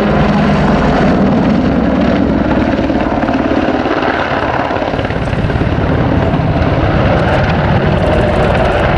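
British Army AH-64 Apache helicopter flying low and close, its rotor thudding rapidly over the steady turbine noise, loud and even throughout.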